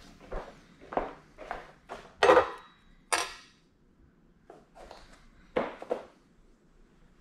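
Small metal car parts clinking and knocking as they are handled and set on a plastic digital platform scale: a string of about ten separate sharp knocks, the loudest a little over two seconds in.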